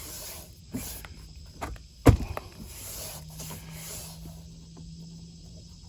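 Hands turning and rubbing over a small mower tire, with scattered clicks and one sharp knock about two seconds in.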